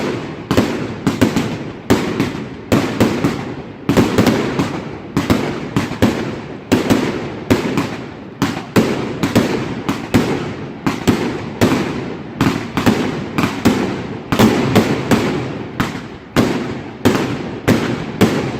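Fireworks going off in a rapid, unbroken barrage: sharp bangs about two or three a second, each trailing off in a short echoing tail.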